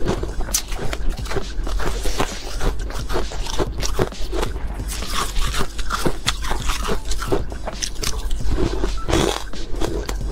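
Frost-covered ice being bitten and chewed close to the microphone: dense, irregular crunching, with a spoon scraping the ice now and then, over a steady low hum.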